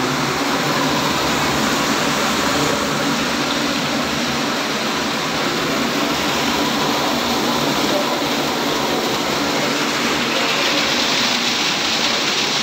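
Hydropower turbine and generator running: a loud, steady roar of machinery and rushing water, with a faint steady hum underneath.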